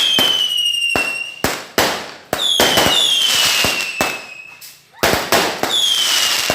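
Fireworks going off: several shrill whistles, each falling slightly in pitch over about a second and often coming in pairs, mixed with many sharp bangs and crackles.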